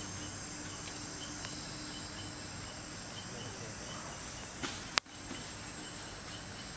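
Insects shrilling steadily in one high, unbroken tone over outdoor background noise. A single sharp click about five seconds in is the loudest sound, followed by a brief drop-out.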